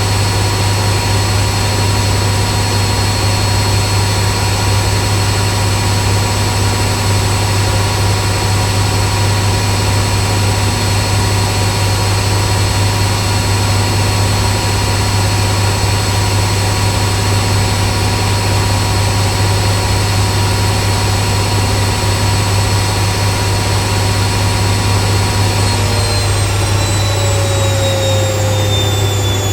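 Washing machine spinning at high speed in its spin cycle: a loud, steady hum with a strong low drone and a high whine. Near the end its pitch begins to fall as the drum slows.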